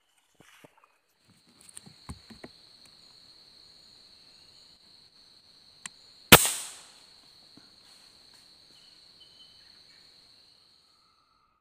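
A single shot from a PCP air rifle about six seconds in: one sharp crack with a short tail. An insect trills steadily and high-pitched throughout, and a few soft knocks come in the first few seconds.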